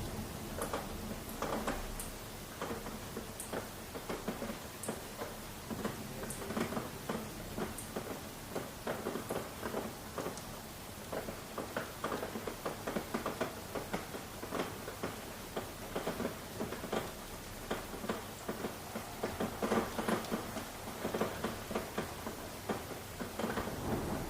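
Rain pattering in dense, irregular drops on a surface, with a few sharper high ticks in the first several seconds.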